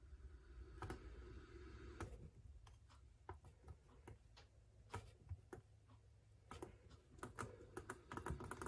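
Faint, irregular clicks and taps of buttons being pressed on a Sangean CL-100 radio while its presets are being set, coming more quickly in the last couple of seconds.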